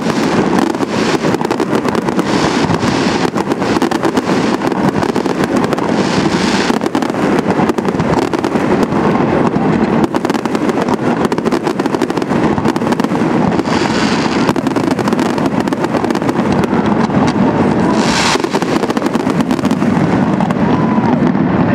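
Aerial fireworks display: a continuous barrage of bangs from shells bursting overhead, with several louder spells of high crackling.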